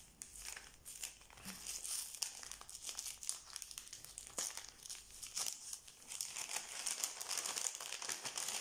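Paper and plastic wrapping rustling and crinkling as packets of scrapbooking supplies are unwrapped by hand: irregular rustles with small clicks, no pause.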